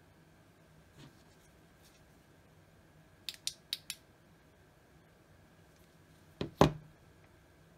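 Flashlight tail clicky switches being pressed: a faint click, then four quick light clicks, and a few seconds later a louder double click with a low knock.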